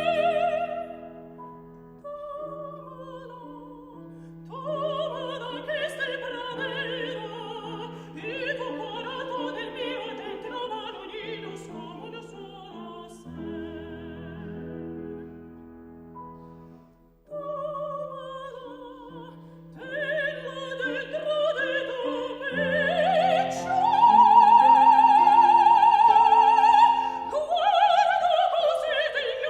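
Solo soprano singing a Spanish zarzuela song with vibrato, accompanied by piano. The phrases break off briefly about 17 seconds in, then the voice climbs to a long high note held for about four seconds, the loudest part, before falling away near the end.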